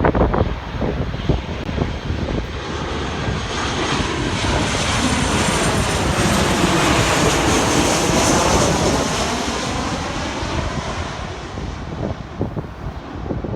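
Airliner on approach to land passing overhead, its engine noise swelling to a peak about halfway through and then fading away. Wind buffets the microphone at the start and near the end.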